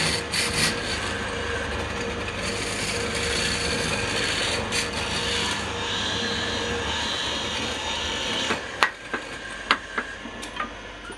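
Wood being cut or scraped by a tool on a woodturning lathe: a steady scraping, rasping noise over a faint motor hum. In the last few seconds it stops and several sharp knocks and clicks follow.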